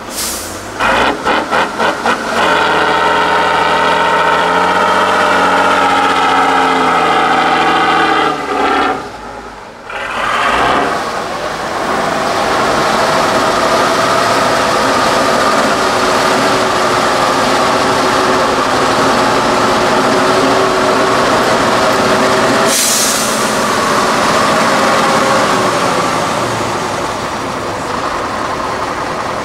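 Tatra 813 8x8 truck's diesel engine working under load: a few quick revs, then a long high engine note that drops away and dips briefly, then pulls steadily again. A short sharp hiss comes about two-thirds of the way through.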